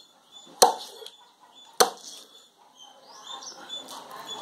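A knife chopping through a flathead fish into slices: two sharp chops about a second apart.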